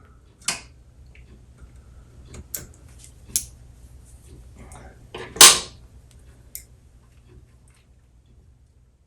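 Sharp metallic clicks and clinks of tools working on the pins of a jukebox popularity-meter gear, as a bent pin is worked back into shape. There are five or so separate taps, and the loudest comes about five and a half seconds in.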